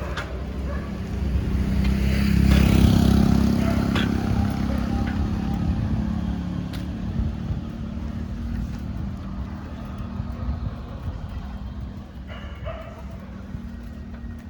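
A motor vehicle's engine passing close by, growing louder to a peak about three seconds in and then slowly fading away. A dog barks briefly near the end.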